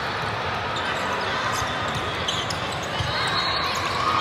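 Volleyball rally in a large sports hall: a few sharp smacks of the ball being played, over the echoing chatter of players and spectators.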